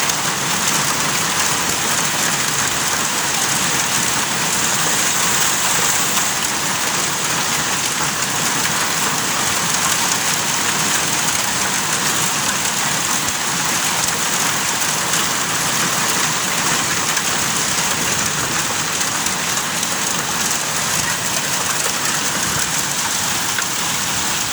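Hailstorm with heavy rain pelting down: a dense, steady clatter and hiss that stays even throughout.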